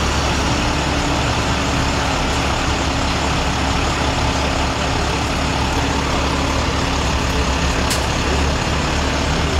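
Utility bucket truck's engine running steadily while the boom is in use, with a steady hum joining about half a second in and a brief click near the end.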